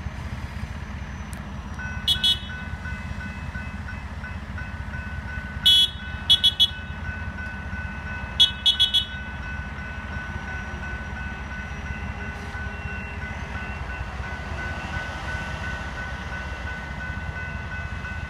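Grade-crossing warning bell ringing steadily as the crossing signals activate, with three groups of short horn toots from the hi-rail welding truck, about 2, 6 and 8.5 seconds in, over a low steady rumble.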